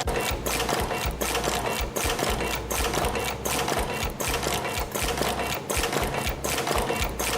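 CNC extension spring forming machine running, a fast, steady mechanical clatter of repeated clicks over a pulsing low hum as it feeds wire and forms springs.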